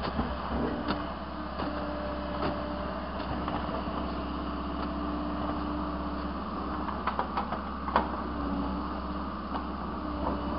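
Case excavator's diesel engine running steadily while it digs into hard, rocky ground. A quick run of sharp knocks comes about seven seconds in, and another about a second later.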